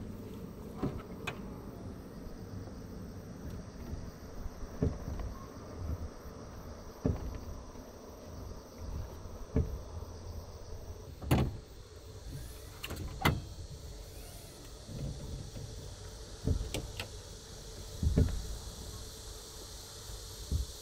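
About ten scattered thunks and knocks from a van's rear tailgate being pushed up and worked by hand. The tailgate is unusually heavy and will not shut, which the owner takes for a failed part.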